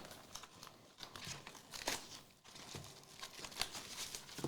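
Trading cards and their packs being handled close up: irregular rustling with small clicks and snaps.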